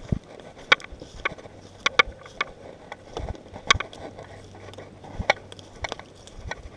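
Footsteps of a hiker walking on a trail, a series of short, sharp, uneven steps.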